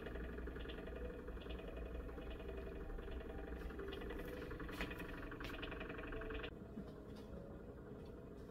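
Faint steady hum of an empty room, with light rustling and small knocks from a hand-held camera being carried around. The handling noise stops about six and a half seconds in, leaving only the quieter hum.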